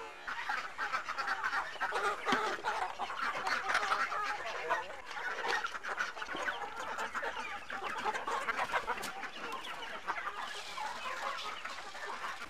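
A flock of village chickens clucking and squabbling in a dense, busy chorus as they crowd in to eat bran mash.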